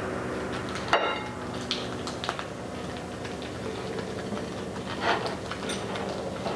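Hands rolling a filled rice paper spring roll on a ceramic plate: soft sticky rustling and crinkling of the wrapper, with a sharp click about a second in and another about five seconds in, over a steady low hum.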